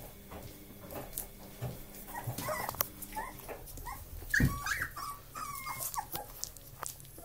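Old English Sheepdog puppies play-fighting: short high yips and squeaky whimpers through the middle, with a loud thump a little past halfway and scattered light clicks and rustles.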